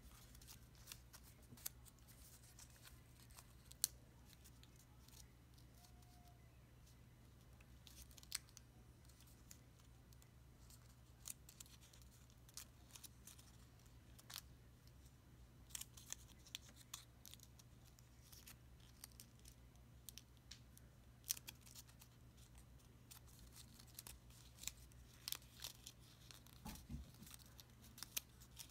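Folded paper crackling and crinkling in the fingers as a small origami model is pinched into shape: faint, scattered quick clicks and rustles in little clusters, over a low steady hum.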